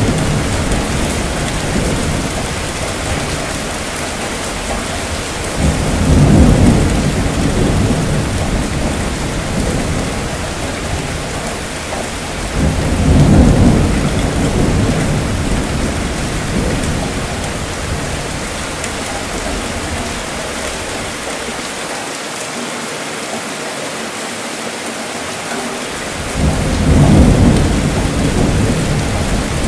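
Steady rainfall hissing throughout, with low rolls of thunder swelling and fading several times: one as it begins, others a few seconds in and around the middle, then a lull before a last roll near the end.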